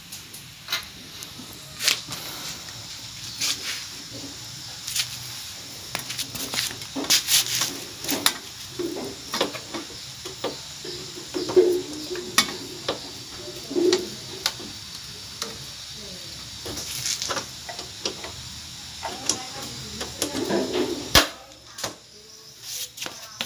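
Irregular metallic clicks and clinks of tools and parts as a rear shock absorber is fitted to a motorcycle, some sharp and loud, over a low background hiss.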